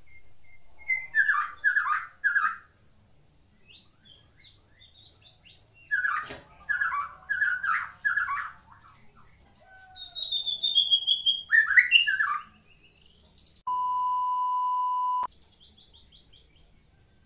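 White-rumped shama singing in three loud bursts of rapid, varied whistles and chatters, a song full of mimicked phrases. Near the end a steady beep holds for about a second and a half, followed by a fast, falling trill.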